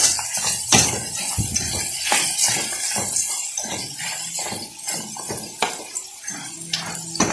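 A metal spoon stirring and scraping a metal pan full of crayfish and mussels in their shells. It makes an irregular clatter of clicks and knocks.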